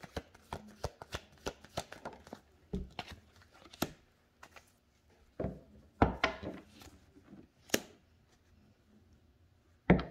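Tarot cards being shuffled and handled: a run of quick snaps and taps, then, after a short pause midway, a few louder slaps.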